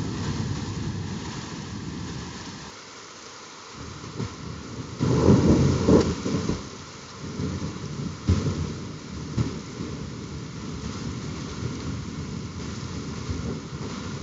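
Thunder rolling during a heavy rain shower: a fading rumble at first, a louder peal about five seconds in, then lower rumbles trailing off, over the steady hiss of the rain.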